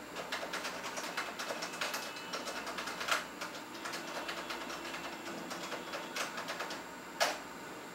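Rapid, irregular clicking and tapping, with a few louder knocks about three, six and seven seconds in.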